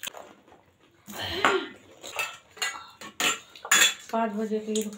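Stainless steel bowls and plates clinking against each other as they are handled and stacked: a string of sharp metallic clinks. Near the end, a person's steady hum is heard.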